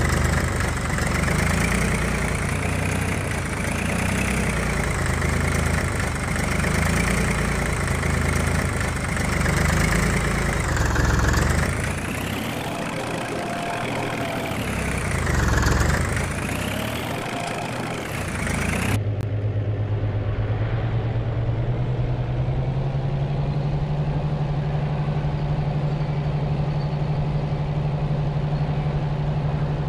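Heavy vehicle engine running, its pitch dipping and recovering twice about halfway through. After an abrupt cut it becomes a steady engine drone whose pitch rises a little a few seconds later and then holds.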